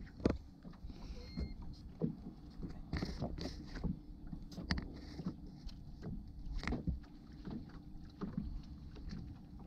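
Scattered knocks and clunks of handling on a boat deck, over a low wind rumble on the microphone.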